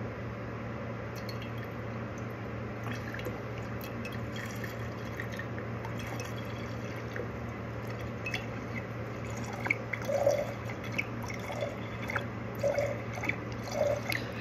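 Hydrogen peroxide trickling and dripping from a plastic bottle into a glass mason jar, with small drips that grow louder and more frequent from about ten seconds in, over a steady low hum.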